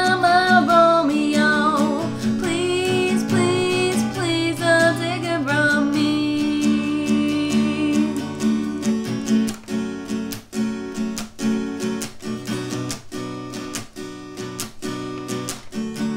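Acoustic song: a voice sings over strummed acoustic guitar for about the first six seconds, then the acoustic guitar carries on alone in a steady strumming rhythm.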